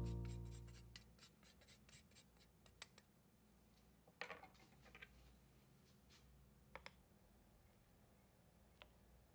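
Background music fading out within the first second or so, then near silence with scattered faint clicks and a short run of scraping a little after four seconds.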